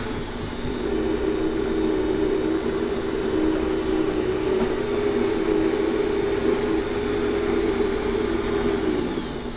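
Commercial countertop blender motor running at high speed, pureeing fresh fruit into juice. The whine comes up just under a second in, holds steady, then winds down near the end.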